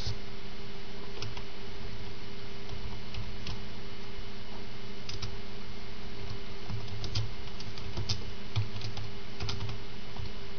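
Irregular light clicks, bunched together about halfway through and again near the end, over a steady hiss and electrical hum.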